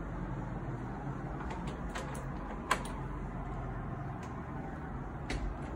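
A hinged closet door being opened: a few light clicks, then a sharp latch click about two and a half seconds in, over a steady low hum.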